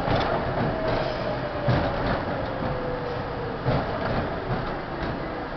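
R-32 subway car running through a station, heard from inside the car: a steady rumble with a few sharp knocks of wheels over rail joints, and a thin motor whine that falls slowly in pitch.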